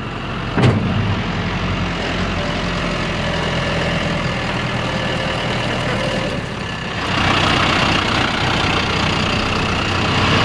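John Deere cab tractor's diesel engine running steadily as the tractor rolls in, with one sharp knock just after the start. A louder hiss joins the engine about seven seconds in.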